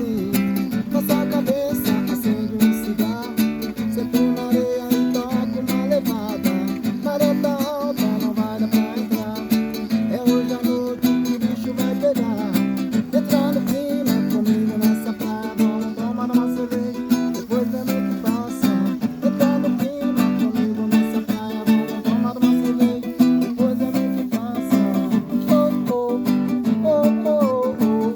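Music led by a plucked, strummed guitar-like string instrument, playing steadily with quick repeated notes over a sustained low drone.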